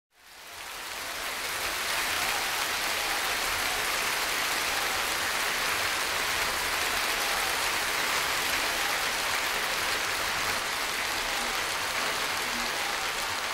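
A steady, even hiss like falling rain that fades in over about the first second and then holds level.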